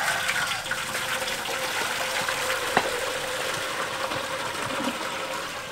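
Water pouring in a steady stream from the spout of a metal watering can into a large metal cooking pot.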